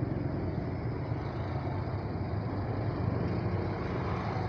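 Steady low rumble of vehicle engines in crawling, jammed traffic, heavy trucks and motorcycles idling and creeping at close range.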